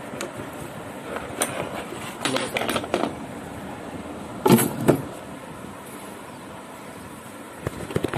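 Handling noise: plastic packaging rustling and small tools clinking on a wooden counter, with two loud crackles about halfway through, over faint road traffic.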